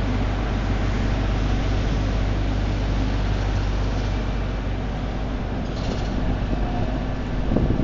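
Steady low rumble of city street traffic, with a transit bus's diesel engine running as it moves off slowly. A brief hiss about six seconds in and a couple of low knocks near the end.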